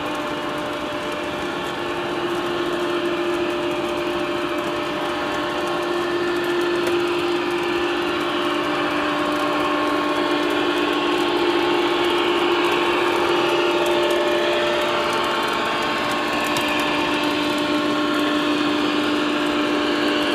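O scale three-rail model freight train rolling past: a steady rumble of metal wheels on the track under a steady electric hum, getting a little louder about two seconds in.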